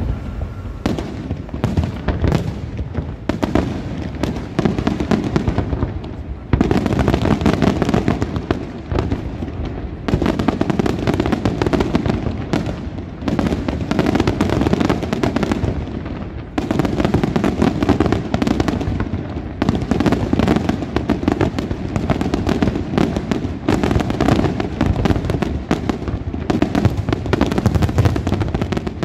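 Senatore Fireworks aerial fireworks display: shells bursting in a rapid, overlapping barrage with crackling, with no pause between bursts. The barrage gets louder about six seconds in.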